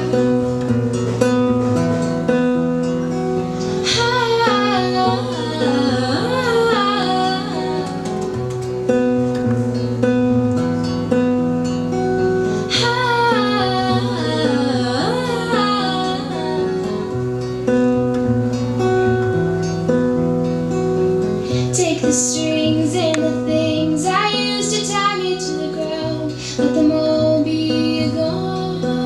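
Acoustic guitar strummed steadily through a chord progression. A woman's voice joins three times with a wavering, wordless melody.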